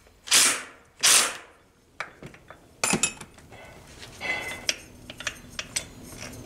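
A cordless DeWalt impact driver fires two short bursts, kicking down the clutch nut on a Tomos A35 moped engine. Then comes a sharp knock and light metallic clinks of tool and parts being handled.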